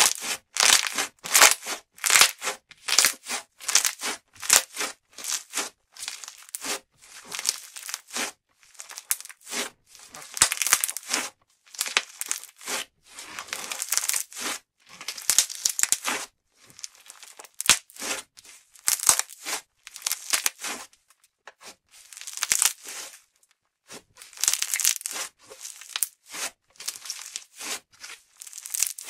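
Pink putty slime being squeezed, pinched, pulled apart and pressed flat by hand, giving a long run of short crackly squishes, about two a second.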